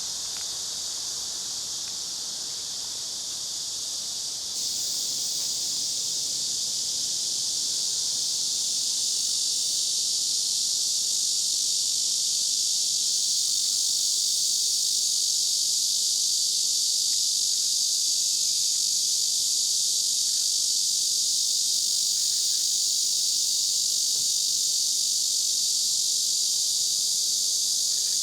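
Cicadas buzzing in a dense, steady summer chorus. It grows louder about four and a half seconds in and then holds level.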